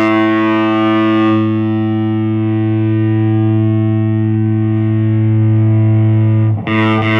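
Electric guitar chord played through a Way Huge Swollen Pickle MKIIs fuzz pedal into a Fender Champion 20 solid-state amp, a thick fuzz tone left to ring out and sustain. It is struck again about six and a half seconds in.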